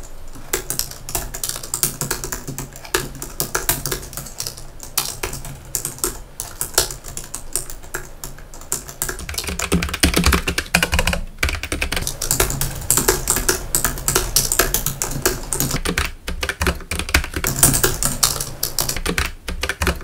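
Fast typing on a Logicool MX Keys, whose low-profile scissor-switch keys give a soft, light clicking. About halfway through it changes to typing on a Keychron K1, a low-profile mechanical keyboard, with louder, fuller key clacks.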